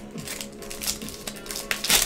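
Foil baseball card pack wrappers crinkling as they are handled, in a few short crackles with the loudest near the end, over steady background music.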